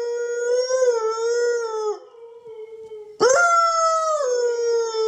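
Siberian husky howling: one long howl that wavers and falls off about two seconds in, then a second howl that starts abruptly about three seconds in, jumps up in pitch and drops to a lower note it holds.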